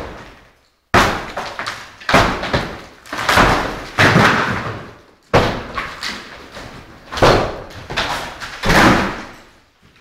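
Painted wallboard panels being smashed off a wall: a run of heavy blows and cracks, roughly one a second, each echoing in the empty room.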